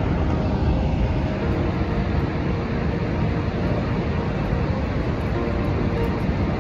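Steady, deep roar of Niagara Falls: a continuous rush of falling water with a heavy low rumble.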